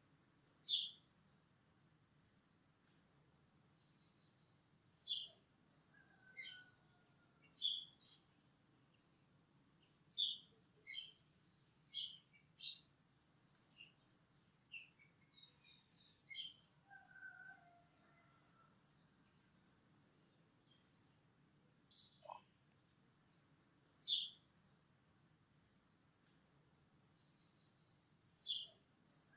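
Small birds chirping faintly: many short, high chirps scattered throughout, with an occasional lower whistle that slides down in pitch.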